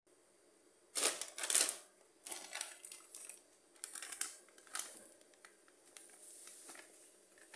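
Plastic bag of wheat flour crinkling and rustling in short irregular bursts as it is handled and tipped to pour flour into a blender jar; the two loudest crinkles come about a second in.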